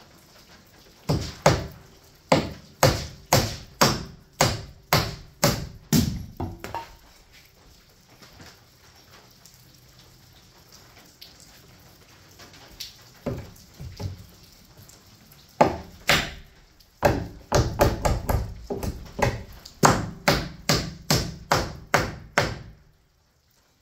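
A hammer driving nails into wooden wall framing: a run of sharp, steady blows at about two a second, a pause with a few lone strikes, then a second, longer run of blows.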